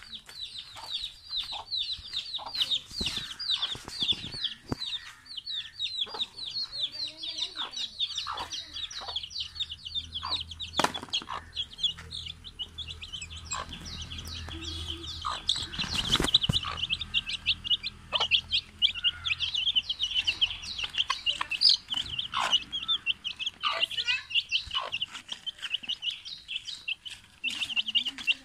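Chicks peeping without a break in quick, high chirps as they feed, with a hen clucking now and then and a few sharp knocks.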